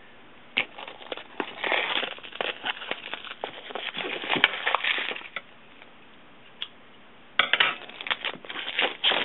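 Scissors cutting the wrapping on a small cardboard product box, with rapid crackles and clicks from the wrap. A pause of about two seconds comes past the middle, then a louder spell of crackling near the end.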